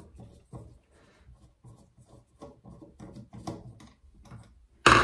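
Phillips screwdriver backing out the handle screw of a Moen faucet, a run of faint, irregular scraping clicks as the screw turns counterclockwise, with one sharper, louder clack near the end.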